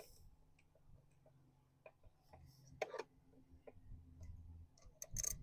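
Faint, scattered small metallic clicks and taps of hand tools and hardware as a carburetor mounting bolt is threaded into a nut on a small outboard motor.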